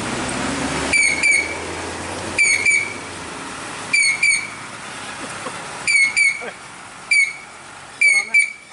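A loaded Mitsubishi Fuso truck's diesel engine running low as it crosses, fading out in the first couple of seconds. Sharp high-pitched chirps sound in pairs every second or two and are the loudest thing heard.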